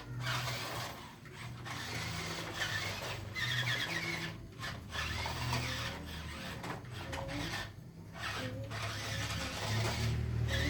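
Small electric motors and gearboxes of RC construction toys whirring, with sand scraping and rubbing, in stretches broken by brief pauses.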